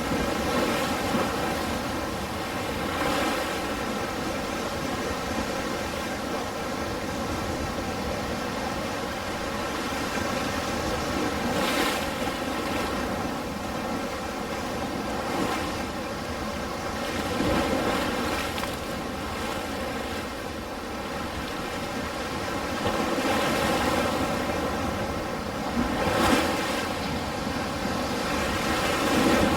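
Ocean surf: a steady rush of waves washing in, swelling louder every few seconds as a wave breaks.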